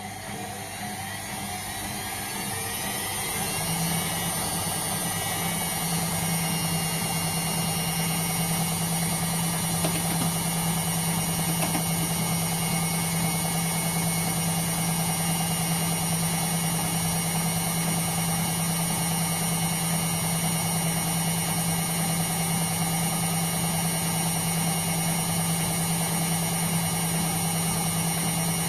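Indesit washing machine going into a spin. The motor whine rises in pitch and loudness over the first four seconds, then holds as a steady hum and whine at spin speed.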